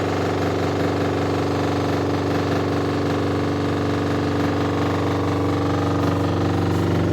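Spin dryer of a Godrej 7 kg semi-automatic washing machine running with a loud, steady hum and a fast rattling buzz. The noise comes from a torn spin-drum buffer.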